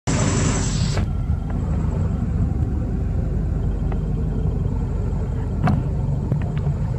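A low, steady outdoor rumble, with a brief hiss in the first second and a faint click near the end.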